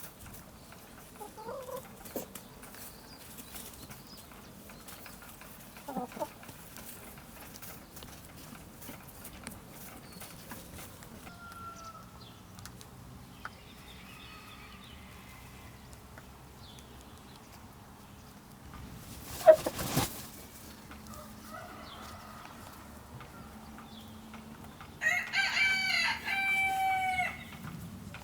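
Chickens clucking now and then, with a sudden loud burst about two-thirds of the way through, then a rooster crowing once, loud and about two and a half seconds long, near the end.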